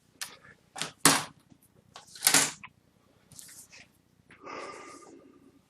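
Handling noises of a laptop LCD panel being lifted out and moved: a series of short rustles and taps, the loudest about two seconds in, then a softer, longer rustle near the end.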